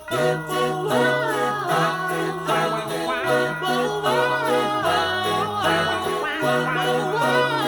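Christmas music with sleigh bells jingling steadily in time over a bass line and melody.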